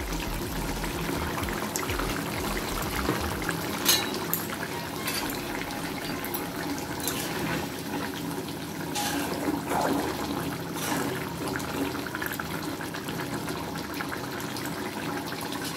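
Fish curry simmering and bubbling steadily in a metal kadai on a gas burner, with a few short knocks and scrapes of a steel ladle stirring it.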